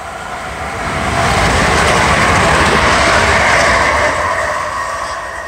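Southern Class 377 Electrostar electric multiple unit passing on the rails, its wheel and running noise swelling to a peak and fading as it goes by.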